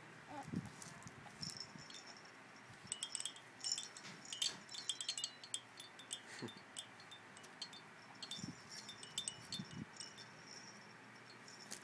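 Small bells or chimes on a baby play gym's hanging toys jingling in irregular bursts as a baby bats and grabs at them.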